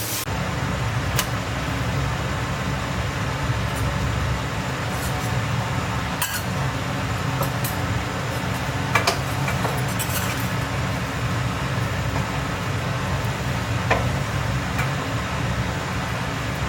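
Steady low hum in a kitchen, with a few sharp clinks of cookware or utensils scattered through it.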